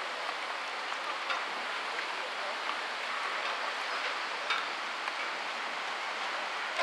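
Heavy rain falling as a steady hiss, with the odd sharper tick of a single drop.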